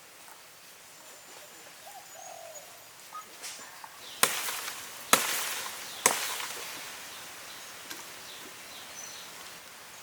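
Three sharp knocks about a second apart, each trailing off in a short rushing decay, over faint high bird chirps.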